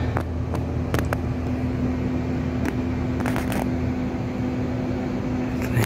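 A steady mechanical hum with a level low tone, crossed by a few sharp clicks and brief rustles of network cables being handled.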